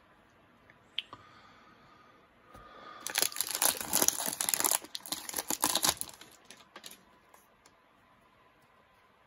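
A foil baseball card pack being torn open by hand, its wrapper crinkling, loudest for about three seconds in the middle.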